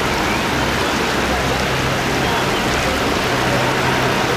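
Steady rush of moving water, with a low hum underneath.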